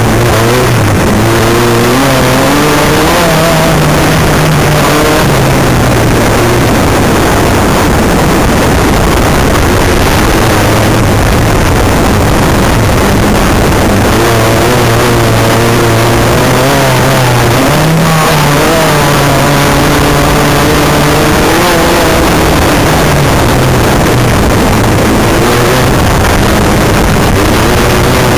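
Off-road race buggy's engine heard from inside the cockpit at racing speed, revving up and dropping back repeatedly as the driver accelerates and shifts, over a constant loud rush of wind and track noise.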